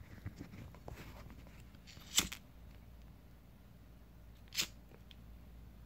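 Quiet room with faint rustling and soft clicks, broken by two short, sharp crackles, one about two seconds in and another about four and a half seconds in.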